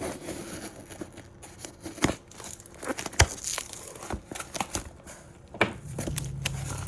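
A cardboard mystery box being opened by hand: its packaging crinkles and tears, with scattered sharp clicks and knocks as it is handled.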